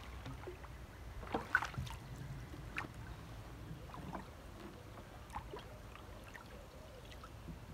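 Canoe being paddled through still floodwater: light splashes, drips and small knocks of the paddle, the loudest cluster about one and a half to two seconds in.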